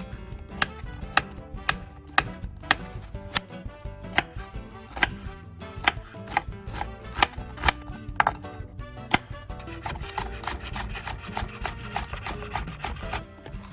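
Chef's knife chopping vegetables on a cutting board: Korean zucchini, then onion, then green chili peppers. Sharp knocks of the blade on the board come at about two a second, then quicken to a fast run of strokes near the end.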